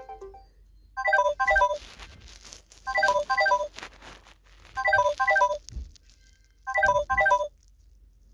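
Samsung Galaxy A40 ringtone: a short bright phrase of quick falling notes, played four times about two seconds apart.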